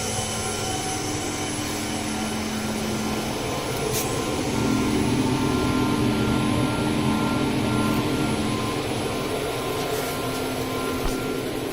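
VENO UC481-1325 CNC router with automatic tool changer running: a steady mechanical hum with a held spindle whine, getting louder for a few seconds around the middle.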